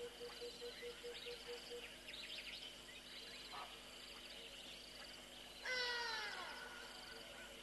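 Birds calling in the bush: many overlapping chirps and whistles, with a pulsed note repeating about five times a second for the first two seconds. About six seconds in comes the loudest sound, a single call of about half a second that falls in pitch.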